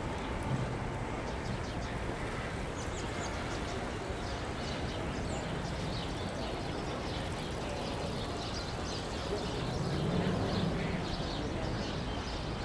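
City park ambience: a steady background of traffic and city noise, with small birds chirping and distant voices.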